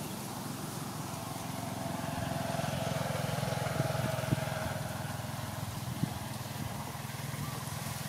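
Low, steady engine hum with a faint whine that grows a little louder around the middle, then eases off.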